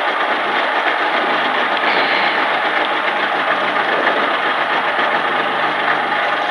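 Citroën Saxo Group A rally car's four-cylinder engine idling steadily, heard from inside the cabin.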